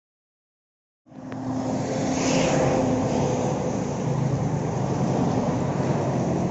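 Road traffic: cars and motorcycles passing on a highway, a steady noise that cuts in suddenly about a second in after dead silence.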